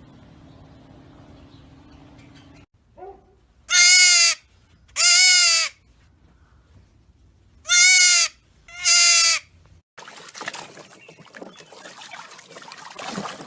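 A goat bleating four times, in two pairs, each call about half a second long with a wavering, quavering pitch. Afterwards the sound changes suddenly to a quieter irregular crackling noise.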